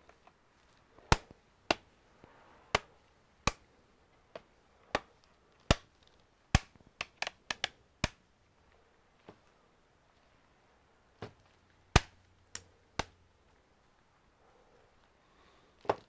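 Plastic retaining clips of a Lenovo ThinkBook 15 Gen 2's bottom cover snapping into place as its edges are pressed down. About twenty sharp clicks come at irregular intervals, with a quick run of them about seven seconds in.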